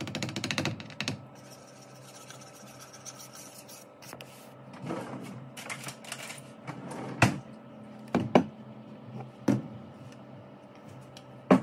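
Fast whisking or stirring in a mixing bowl for about a second, then a few separate sharp knocks and clinks of kitchen utensils and bowls over a steady low hum.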